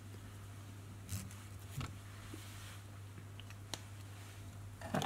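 Quiet room with a steady low hum and a few faint, short clicks and rustles of hands handling a marker pen and the fly.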